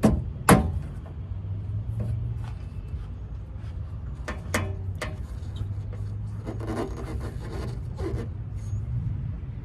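Parts of a welder's casing being handled and fitted: a sharp clack about half a second in, then scattered knocks, clicks and rubbing, over a steady low hum.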